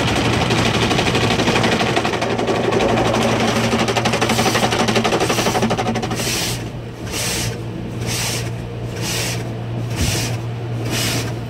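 Automatic car wash heard from inside the car: cloth brushes and water slapping and scrubbing against the windows. From about six seconds in, this gives way to spray pulsing over the car a little under twice a second, over a steady low hum.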